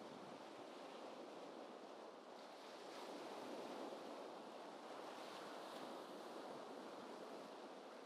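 Gentle ocean waves washing softly, an even hiss of surf that swells a little about three seconds in.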